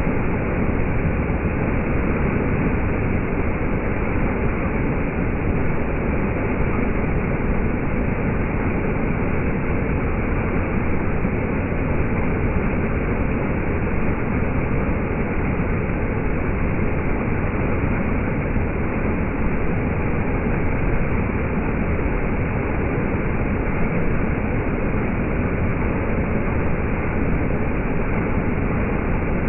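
A stream rushing in small cascades down sloping rock slabs, a steady, unbroken water noise.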